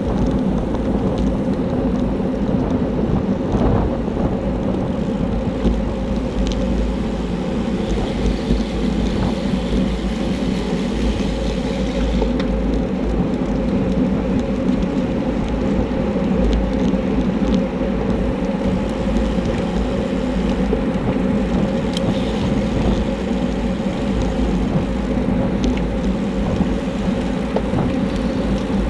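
Wind buffeting the microphone of a handlebar-mounted camera on a road bicycle moving at race speed, a steady low rumble with road noise and a few faint ticks.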